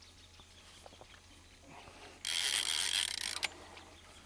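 Fishing reel's drag buzzing for about a second as a hooked giant stingray pulls line off against it, starting abruptly about two seconds in and breaking off raggedly, after a few faint clicks.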